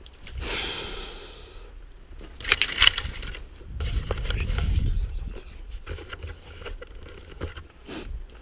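Rustling and scraping, with a quick cluster of sharp snaps about two and a half seconds in and a low rumble a little later.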